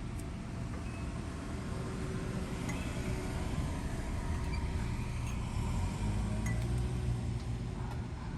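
A few faint, light metallic clicks as a brake caliper guide pin is handled and threaded in by hand, over a steady low rumble.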